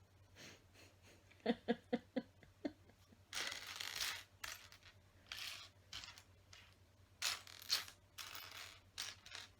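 Small plastic LEGO pieces being rummaged through and clicked together, with repeated short clatters and rustles. About one and a half seconds in there is a quick run of five short pitched notes.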